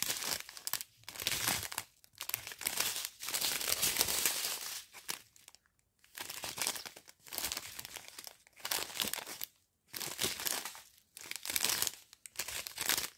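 Clear plastic sachets of round diamond-painting drills crinkling as they are handled and turned over, in irregular bursts with short pauses between them.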